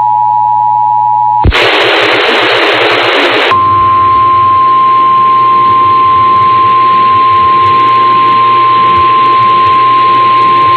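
Emergency Alert System two-tone attention signal, two steady tones sounding together, broken off about a second and a half in by a two-second burst of loud static. Then a single steady alert tone sounds over radio hiss for the rest.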